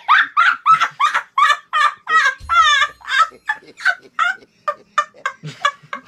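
A rapid run of short high-pitched calls, about four a second, with a fast warbling stretch a little over two seconds in.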